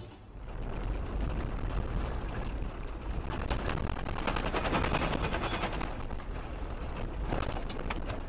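Car driving on an unpaved gravel road, heard from inside: a steady low rumble with dense, rapid crackling of gravel under the tyres, thickest about three to five seconds in.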